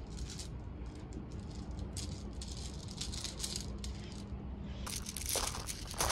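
Quiet outdoor ambience with a faint steady hum and scattered small ticks. About five seconds in, footsteps begin crunching on loose pebble gravel, a few sharp crunches at a time.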